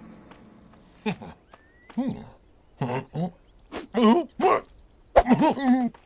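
Animated hippo characters making short wordless vocal sounds (grunts and warbling murmurs) in a string of brief bursts, the last ones wavering in pitch, over a faint steady high cricket chirr.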